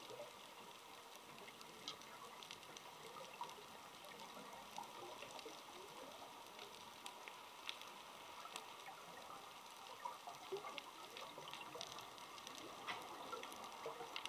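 Faint underwater ambience: a low steady hiss with sharp clicks and crackles scattered at irregular intervals.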